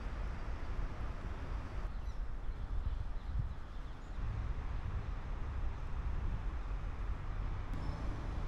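Outdoor street ambience: a steady low rumble of wind on the microphone and road traffic. It shifts abruptly a few times where the footage is cut.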